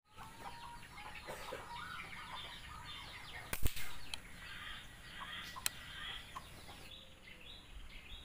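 Birds chirping and twittering in the trees, with one sharp crack about three and a half seconds in and a fainter click about two seconds later.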